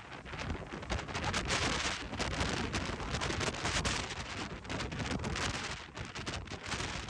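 Hurricane Milton's storm wind gusting hard against the microphone, the buffeting giving rapid low thumps, over a steady rush of wind and rain.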